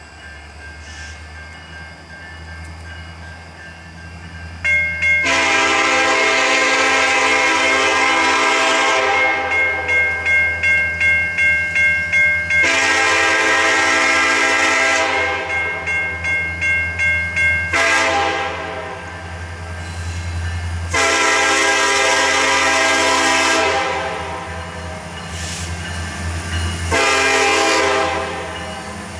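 Approaching diesel locomotive sounding its multi-chime air horn for a grade crossing: two long blasts, a shorter one, then another near the end, over a steady low engine rumble. The crossing's warning bell rings with a quick, even beat between the blasts.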